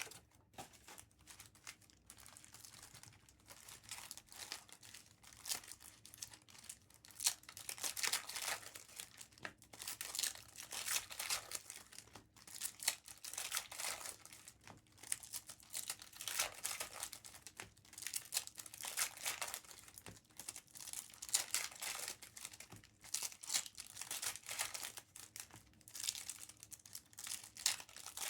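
Trading-card pack wrappers crinkling and being torn open, with rustling that comes and goes over and over as one pack after another is opened.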